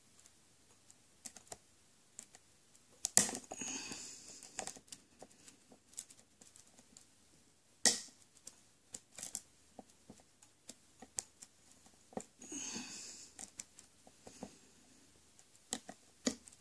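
Lock pick and tension wrench working the pin tumblers of a 60 mm Ace padlock: scattered light metal clicks and ticks, with a sharper click about eight seconds in and two short spells of scraping, about three seconds in and again near twelve seconds.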